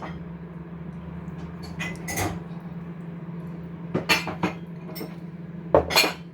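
Kitchen utensils and dishes clinking and knocking as they are handled, in short sharp clinks around two, four and six seconds in, the loudest near the end. A steady low hum runs underneath.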